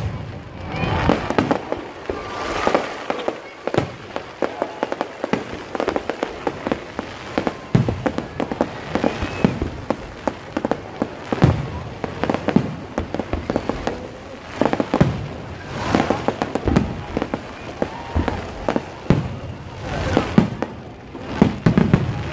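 Aerial fireworks display: a continuous barrage of bangs and crackling bursts at irregular spacing, each followed by a short echo.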